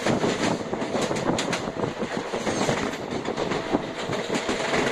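Passenger train running along the track, heard from aboard a coach: a steady rumble with wheels clicking over rail joints, and a faint steady whine coming in about halfway through.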